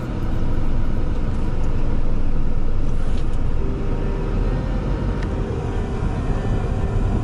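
Car driving, its engine and tyre rumble heard from inside the cabin. A faint steady tone joins about halfway through.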